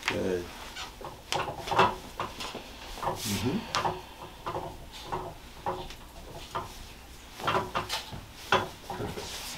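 Irregular soft clicks and knocks, about one every half second to a second, from hands working and manipulating a person's feet and ankles during a chiropractic ankle mobilisation.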